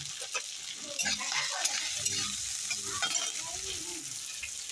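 Potatoes and onions sizzling in hot oil in a steel kadhai as they are stirred, with the spatula scraping and ticking against the metal now and then.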